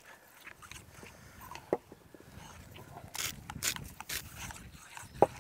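Hand pepper grinder crunching out pepper in short bursts over a plate of batter, while a knife scrapes in a plate; a utensil clinks sharply on a plate twice, the louder one near the end.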